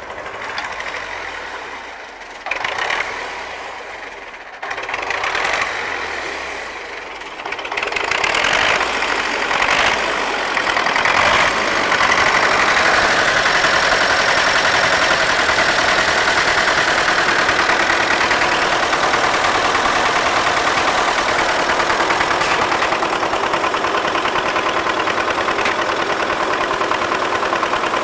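MTZ-80 tractor's D-240 four-cylinder diesel idling, running again after its fuel injection pump was rebuilt. It gets louder about eight seconds in and then runs steadily.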